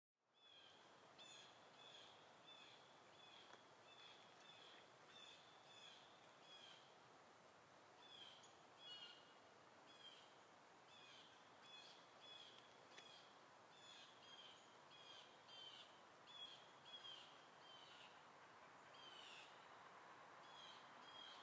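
Faint outdoor ambience: a bird calling over and over in short high chirps, about one or two a second, over a soft steady background noise.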